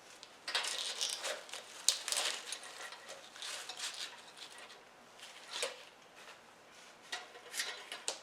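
Rustling and light clicking of artificial fall garland and small decorations being handled and set in place around a lantern on a tray, in irregular bursts that are busiest about a second in and again near the end.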